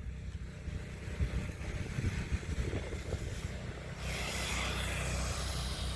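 Electric RC rally car drifting on snow, its motor and spinning tyres heard at a distance and getting louder about four seconds in, over a low rumble of wind on the microphone.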